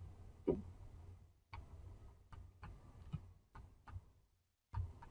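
Faint, irregular clicks and taps, about ten of them spread unevenly, from a pen or mouse input device as handwriting is drawn onto an on-screen worksheet.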